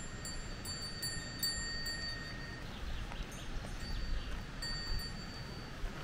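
Cowbells on grazing cows ringing irregularly, several clear bell tones that ring out and fade, over low wind noise.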